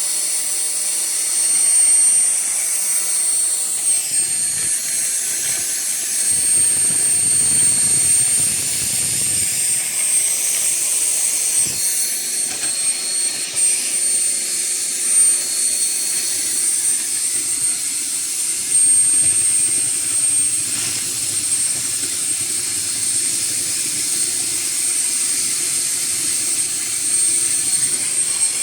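Motor of a portable stand-mounted hand drilling rig running steadily, with a high, even whine over the machine noise.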